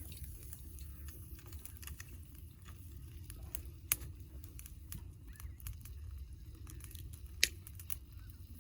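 Wood campfire crackling: scattered sharp pops and ticks, two louder ones about four seconds in and near the end, over a steady low rumble.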